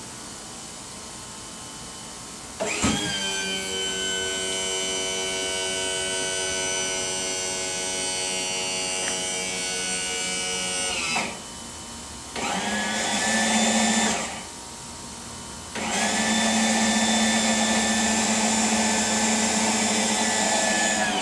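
Electric power trim pump on a MerCruiser Bravo outdrive running in three goes as it moves the drive on its new trim cylinders: a steady motor whine from about three seconds in that lasts about eight seconds, a short run of about two seconds, then a third run from about sixteen seconds in that lasts to the end.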